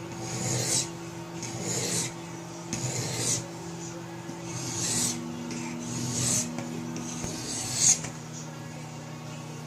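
Sharpening stone of a Riorand knife sharpening kit being stroked along a knife's edge bevel, about six rasping strokes, each swelling to a sharper scrape at its end. The strokes run in both directions to lay a cross-hatch on the edge. A faint steady low hum lies underneath.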